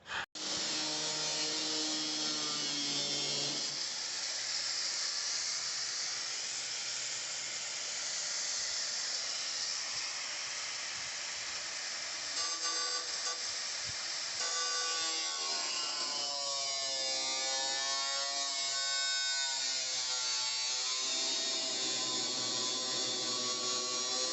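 Background music with a wavering melody over a steady high hiss.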